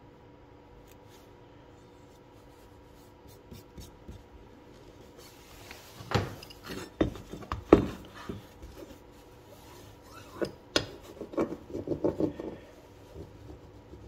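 Hands and a small metal hand roller working a mesh prefilter into a plastic intake panel frame: scattered clicks and knocks beginning about halfway in, the loudest near the middle, then a run of scraping rubs.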